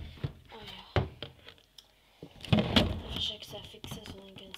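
Several knocks and thuds of handling: a sharp knock at the start, another about a second in, and a louder cluster of thumps midway. A voice is heard indistinctly afterwards.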